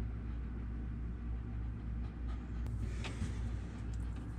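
Steady low background rumble, with a few faint clicks of a thin wire and a plastic connector being handled about three seconds in.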